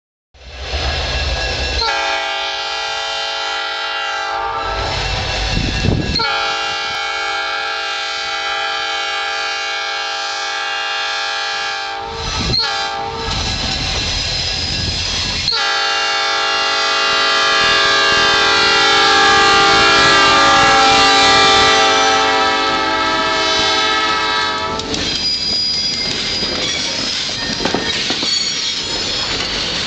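Locomotive warning horn blowing the grade-crossing signal: two long blasts, a short one and a final long blast whose pitch drops as the train passes. After it comes the rumble and clickety-clack of the train's wheels on the rails as the steam locomotive and coaches roll by.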